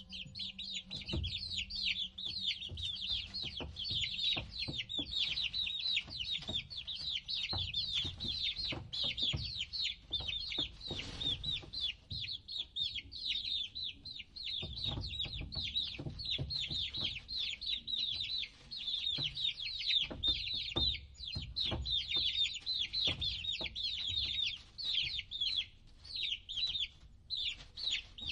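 Many baby chicks peeping continuously, a dense stream of short, high, downward-falling peeps overlapping one another, with scattered soft knocks and bumps underneath.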